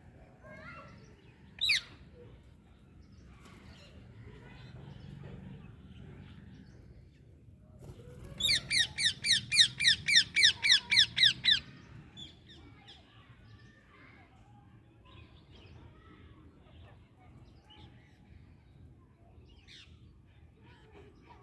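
Pet parrot calling: one sharp, high screech about two seconds in, then a fast run of about fifteen shrill, evenly repeated notes, some five a second, lasting about three seconds. Faint chatter is heard between the calls.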